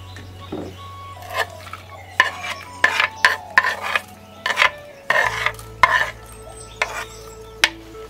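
Ingredients being put into a clay cooking pot and stirred or scraped with a spoon, in a run of short clattering, rustling strokes. A sharp click of a spoon against a clay bowl comes near the end.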